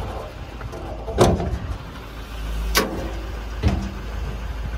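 Three sharp metallic clunks, the loudest about a second in, as the white metal tool compartment lid on the wrecker body is handled and shut, over a steady low rumble.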